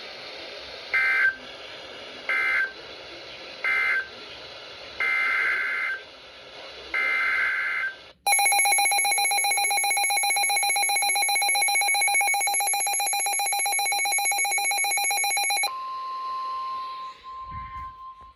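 Emergency Alert System data bursts: three short buzzing bursts, then two longer ones, followed by the loud EAS attention tone for about seven seconds. It cuts to a fainter steady single tone near the end, over radio hiss.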